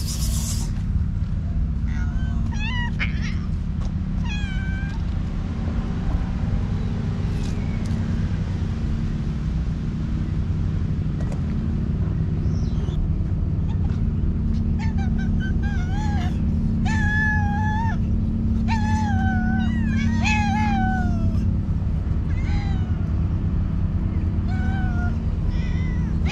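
Hungry stray cats meowing as they follow along: a few calls in the first seconds, then a run of long, wavering meows about midway and more near the end, over a steady low rumble.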